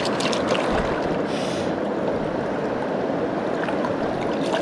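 Steady rush of river current flowing over rocks, with a few faint clicks in the first half second.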